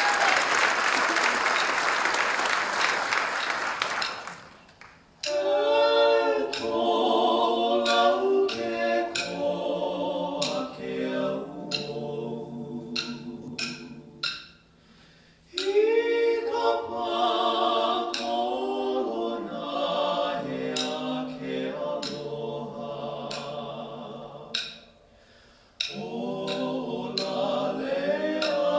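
Audience applause dies away, then a Hawaiian male vocal trio sings in close harmony, unaccompanied, in three phrases separated by short pauses.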